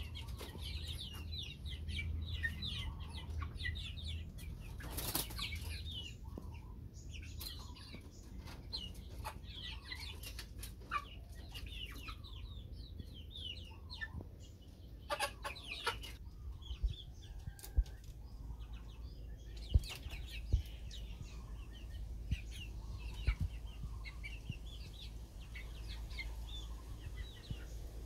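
A flock of young chickens in a cage peeping and clucking without pause, with bursts of wing flapping about five seconds in and again around fifteen seconds. A few short knocks follow.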